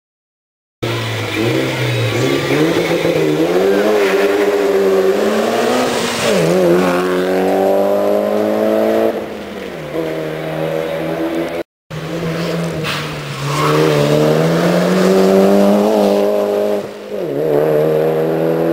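Race car engine accelerating hard up a hill climb, its pitch climbing and then dropping at each of several gear changes. The sound breaks off for a moment near the middle and then carries on with the same climbing and shifting.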